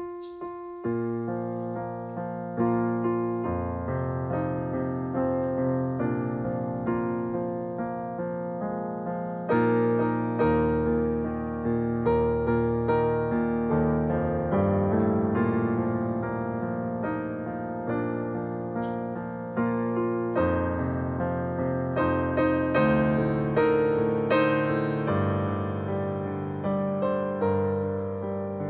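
A piano playing chords over a low bass line, each note struck and fading away. It starts suddenly out of near silence.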